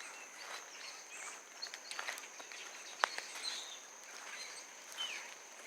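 Footsteps crunching on leaf litter and twigs, heard as scattered soft clicks, over a steady high-pitched insect drone, with a few brief bird chirps.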